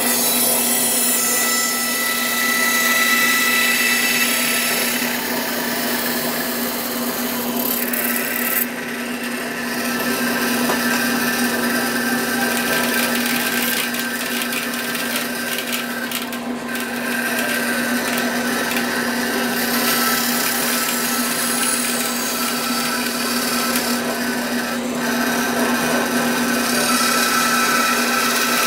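Bandsaw running with its blade cutting through wood: a steady motor hum under a rough, shifting cutting noise that eases briefly about nine seconds in and again around sixteen seconds.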